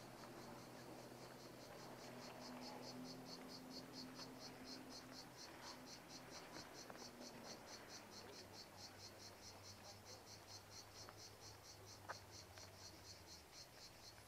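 Faint insect chirping in a rapid, even pulse of about five high-pitched chirps a second, over a faint low steady hum.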